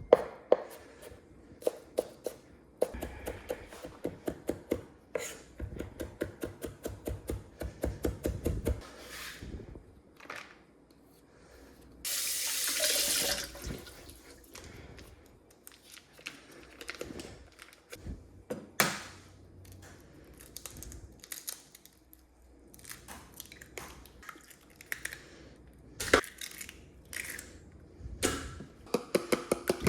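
Kitchen knife rough-chopping garlic cloves on a cutting board in quick, rapid strokes for the first nine seconds or so. About twelve seconds in, a tap runs briefly, and after that come scattered knocks of kitchen prep.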